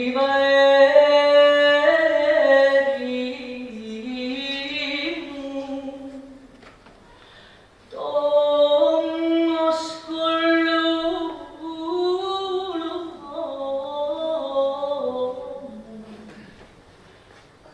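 A woman singing unaccompanied: a slow, lamenting Greek song of exile (xenitia), with long held notes that bend and ornament in pitch. It comes in two phrases, with a short breath of near silence about seven seconds in.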